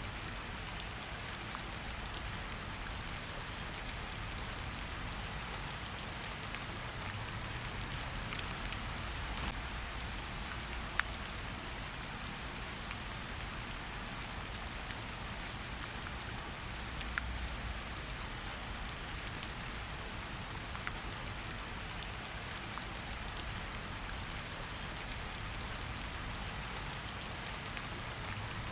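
Steady heavy rain falling on a surface, a continuous hiss with individual drops ticking sharply through it.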